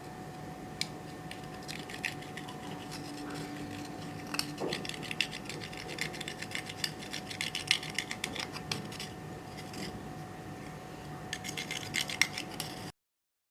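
Quick sharp clicks and crackles from hands working slime and eyeshadow makeup, coming in two dense runs. The sound cuts out abruptly near the end.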